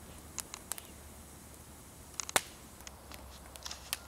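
Wood campfire of freshly stacked sticks crackling: scattered sharp pops and snaps, a few a second, the loudest about two and a half seconds in.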